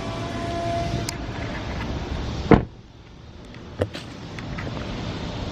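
A car door shuts with one loud thud about two and a half seconds in, and the surrounding noise drops off at once. A lighter click follows about a second later.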